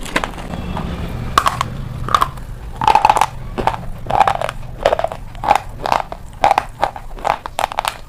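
Close-miked crunching and chewing of hard, chalky grey sticks in the mouth: a run of crisp crunches, about one or two a second.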